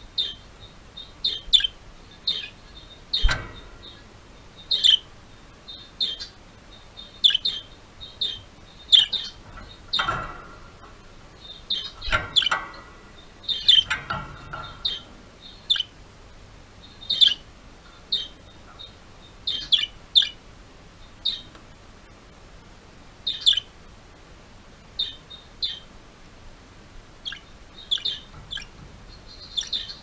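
Budgerigars chirping: short high chirps, one or two every second or so, with a busier stretch of chatter between about ten and fifteen seconds in. A single sharp knock about three seconds in.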